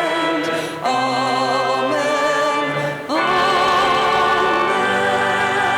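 Sacred music in a church service: a voice sung with strong vibrato over held accompaniment chords. The phrases break briefly about a second in and again about three seconds in, then the singing carries on.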